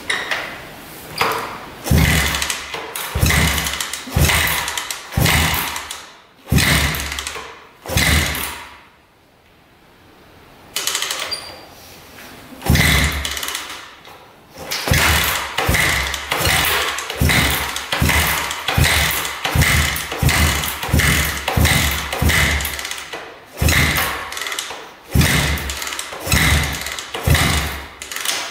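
1974 Honda CB360 parallel-twin engine being turned over on choke in a run of short cranking bursts, about one a second, with a pause of a couple of seconds about nine seconds in; it is struggling to start after its carburetors were cleaned and refitted.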